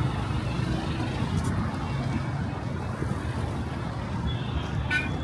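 Road traffic: a steady low rumble of passing motor vehicles, with a short higher-pitched tone near the end.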